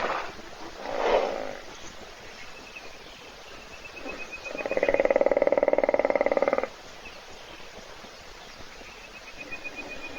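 Hippopotamus snoring: one loud, rasping, rapidly pulsed snore lasting about two seconds around the middle, after a shorter burst about a second in. A bird's quick trill of repeated high notes comes before it and again near the end.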